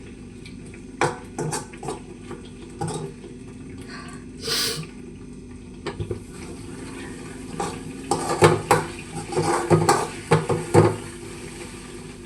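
Metal cooking utensils clinking and knocking against a cooking pot as curry is cooked: a few scattered knocks at first, then a dense run of clatter in the second half.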